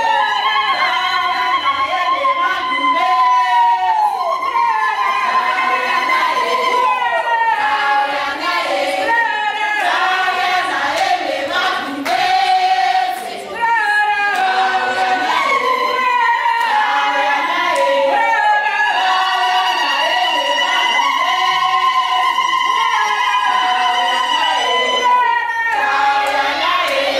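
A group of voices singing together unaccompanied, a cappella, with long held and sliding notes.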